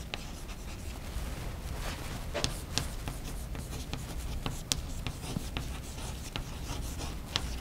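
Chalk writing on a blackboard: irregular taps and short scratches as words are written out, over a steady low hum.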